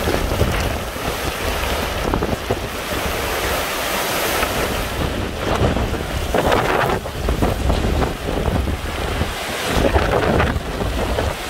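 Hurricane winds rushing and buffeting the microphone, with no let-up. It surges in stronger gusts a little past halfway and again about ten seconds in.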